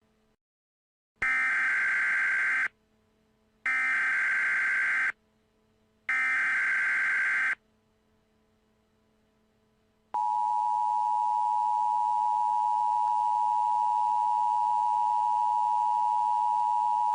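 Emergency Alert System activation. Three short bursts of SAME digital header tones, each about a second and a half long with pauses between them, encode the alert. About ten seconds in, the steady two-tone EAS attention signal starts, warning that an emergency message follows.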